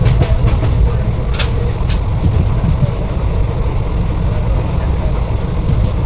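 Steady low rumble of a train, with voices in the background. Two short sharp clicks come about one and a half and two seconds in.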